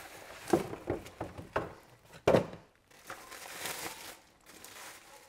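Packaging crinkling and rustling as the dashcam is handled out of its box: irregular crackles and light knocks, the loudest about two seconds in, then softer rustling.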